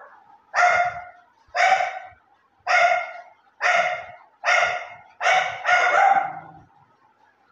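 A small dog barking repeatedly, about six high-pitched barks roughly one a second, the last one drawn out a little longer.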